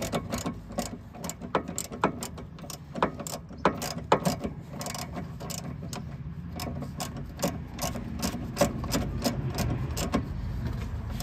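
Hand socket ratchet clicking in irregular runs as its handle is swung back and forth, tightening nuts on a steering linkage under the car. It is being worked by hand because an impact gun would not fit.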